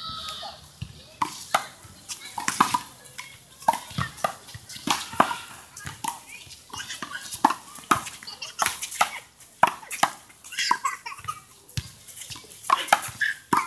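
Small rubber handball being struck and bouncing: a run of sharp, irregular smacks as it is hit by hand, strikes the wall and bounces on the court.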